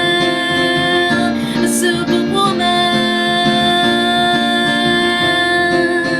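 Singing: a woman's voice holds a long note on 'a' over steady instrumental accompaniment with a repeating plucked pattern.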